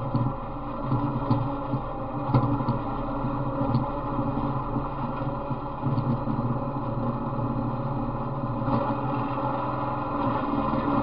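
Small engine of an off-road riding mower running steadily as it drives over snow and slush, with a few sharp clunks in the first few seconds. The owner says this engine has a knock and has tried straight 40-weight oil with STP treatment to quiet it.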